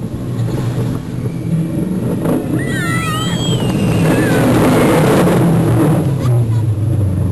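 Roller coaster car rumbling and rattling along its track. About three seconds in comes a rider's high, wavering scream that trails off in pitch. Then a loud rush of wind noise builds as the car picks up speed.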